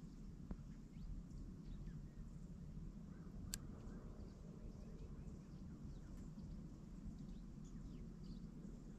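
Faint, scattered chirps of small songbirds calling over a steady low rumble, with one sharp tick about three and a half seconds in.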